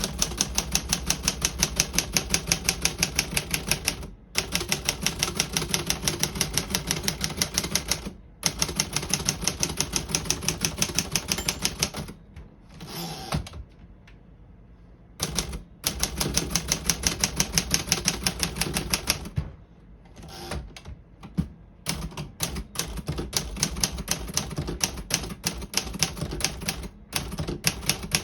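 1957 Remington Quiet-Riter portable typewriter being typed on: runs of rapid, even keystrokes, about seven a second, broken by short pauses. The last several seconds have slower, uneven keystrokes.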